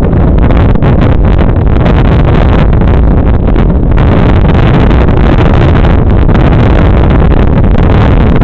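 Loud, continuous wind rumble buffeting the microphone of a bicycle-mounted camera as the bike rolls along at speed.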